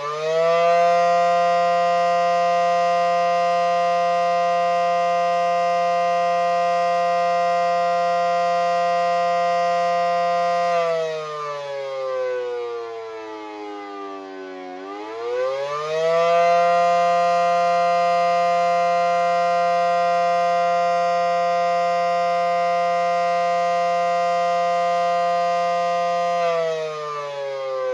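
Federal Signal SD10 outdoor warning siren sounding the attack signal, a long wail. It winds up in pitch, holds a steady tone for about ten seconds, then slides down for several seconds. It winds back up and holds again, and starts to wind down near the end.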